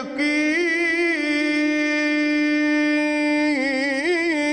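A solo male voice singing unaccompanied Islamic devotional song (inshad). It holds one long, steady note, then breaks into quick melismatic ornaments about three and a half seconds in.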